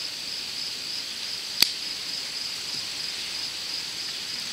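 Steady high-pitched chorus of insects, with a faint even pulsing, and a single sharp click about a second and a half in.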